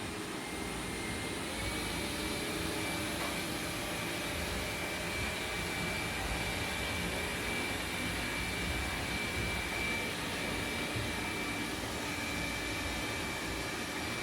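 Xiaomi Mijia 1C robot vacuum running with its suction fan on, a steady rushing noise with a thin high whine over it from about a second and a half in.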